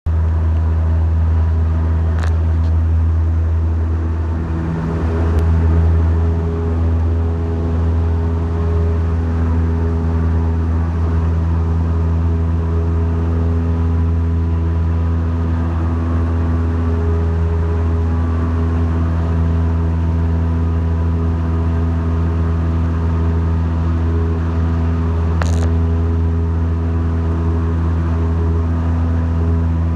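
Light high-wing aircraft's piston engine and propeller at takeoff power, heard inside the cabin: a loud, steady drone through the takeoff roll and climb-out. A few brief clicks sound over it.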